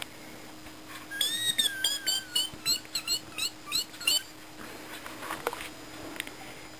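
A run of short, high-pitched squeaks, about three a second for some three seconds, opening with one longer, wavering squeak; a few faint clicks follow.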